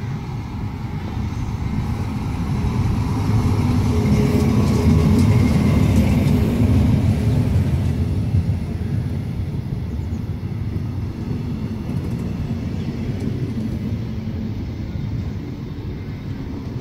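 DB Class 112 electric locomotive hauling a train of double-deck coaches past on the platform track. The low rumble of wheels on rail swells as the locomotive goes by, loudest about four to six seconds in. It then settles into the steady rolling of the passing coaches.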